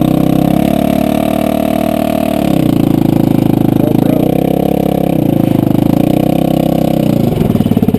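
Yamaha Rhino side-by-side's engine running close by, its speed rising and falling several times as it is driven.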